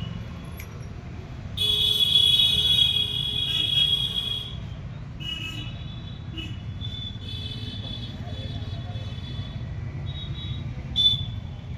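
Street traffic rumbling, with a shrill vehicle horn blaring for about three seconds near the start, then a run of shorter high-pitched beeps and toots.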